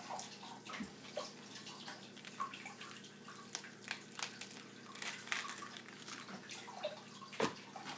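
Outer layers of a Moso bamboo shoot being peeled off its heart by hand: a scattering of small crisp cracks and tearing sounds, with a louder snap near the end, over a steady low hum.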